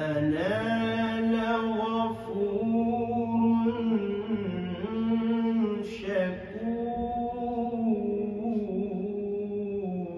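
A man reciting the Quran in a slow, melodic chanting style, drawing out long held notes with only a few short breaks for breath.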